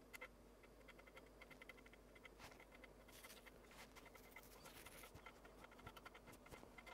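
Faint bursts of rapid ticking from the Amiga 500's floppy drive, its head stepping and reading as the machine boots from the Workbench 1.3 disk.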